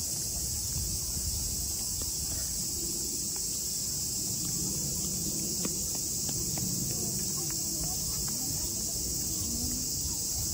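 Cicadas in a summer chorus, a steady high-pitched drone with no break. Beneath it are a low rumble and faint distant voices.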